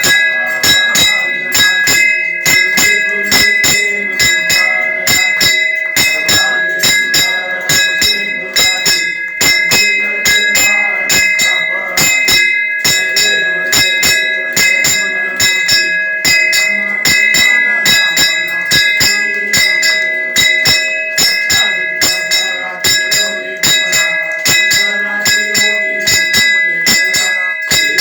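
A temple bell rung rapidly and without a break, about three strokes a second, its ring carrying on between strokes.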